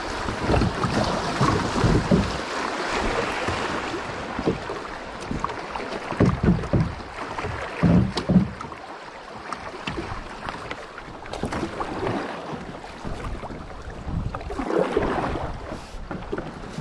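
River water rushing over shallow riffles around a drifting kayak, with wind buffeting the microphone in uneven low gusts, strongest in the first half.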